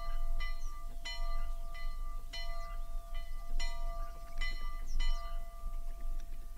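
Soundscape-composition playback: a run of bell-like strikes, irregular at about one or two a second, each ringing on with steady tones, over a low steady rumble. The strikes stop about five seconds in and the ringing fades.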